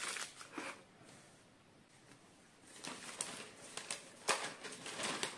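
Plastic packaging rustling and crinkling as small packaged items are handled. Quiet for about two seconds in the middle, then more rustling with a sharp click a little past four seconds in.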